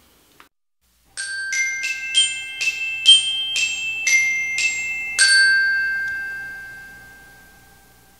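A short glockenspiel-style jingle: about ten bright struck notes, roughly two a second, starting about a second in. The last note rings on and fades away over about three seconds.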